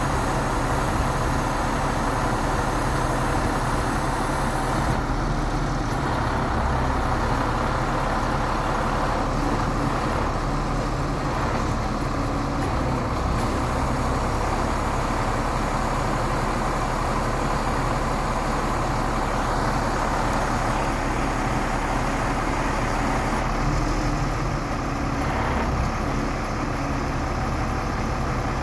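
International DT466E straight-six diesel engine of a boom conveyor truck running steadily at idle, driving the conveyor boom's hydraulics as the boom swings.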